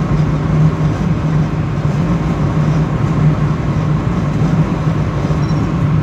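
Steady road and engine noise inside a car's cabin while driving on a highway, with a constant low hum under it.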